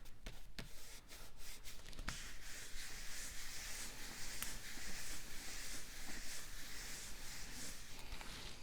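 Hands pressing a cardstock piece into place, a few light taps and clicks at first, then steady papery rubbing as the paper is smoothed down.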